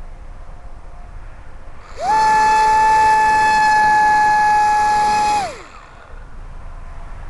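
Electric RC plane's Neu 1105/2Y brushless motor and APC 4.5x4.1 propeller opening up to full throttle: a high, steady whine that swoops up in pitch about two seconds in, holds for three and a half seconds, then slides down and falls away as the throttle is cut.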